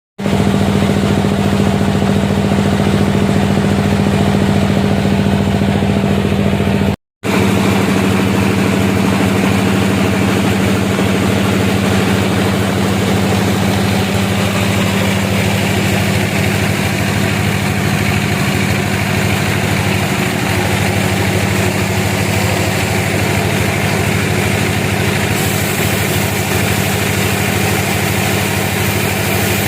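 Sawmill machinery running with a steady mechanical hum. The sound drops out for a moment about seven seconds in, then carries on unchanged.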